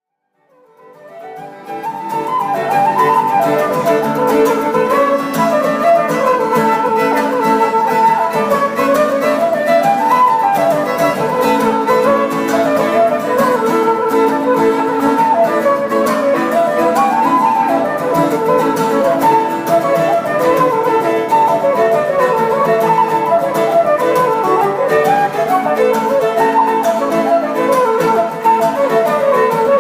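Instrumental folk music: a flute playing a lilting melody over a plucked guitar accompaniment, fading in over the first couple of seconds.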